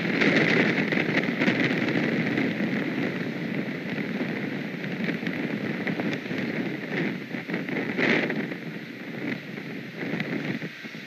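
Wind buffeting an outdoor nest-camera microphone: a rough rushing noise that swells and eases, with a stronger gust about eight seconds in.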